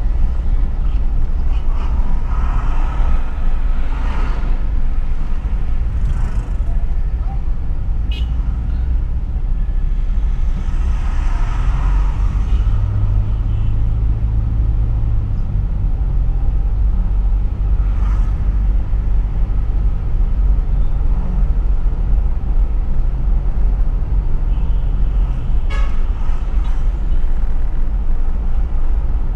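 Steady low road and engine rumble of a car driving through town traffic, heard from inside the car. Other traffic swells past twice, and a low engine hum comes in for a stretch in the middle.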